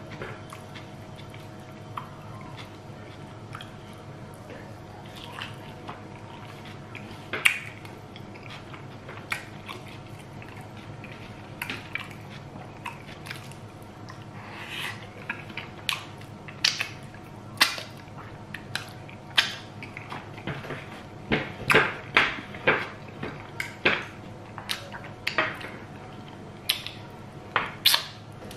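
Close mouth sounds of a man eating with his fingers: chewing, then wet lip smacks and finger-sucking clicks. These come sparsely at first and grow frequent and sharper in the second half as he licks food off his fingers.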